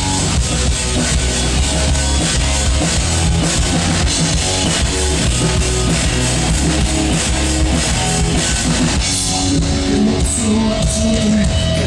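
Rock band playing an instrumental passage: drum kit and distorted electric guitars over a steady bass, loud and even throughout. Near the end a single long held note enters above the band.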